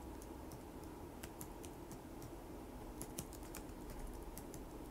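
Faint key clicks of someone typing on a keyboard: irregular taps, about two or three a second.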